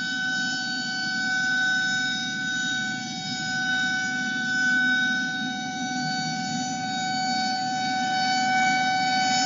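Civil defense siren sounding one steady tone, its loudness slowly swelling and fading, over a low rumbling hiss.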